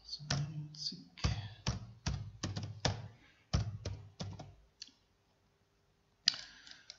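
Typing on a computer keyboard: about a dozen quick keystrokes over the first four and a half seconds, then a pause and one sharp click about six seconds in.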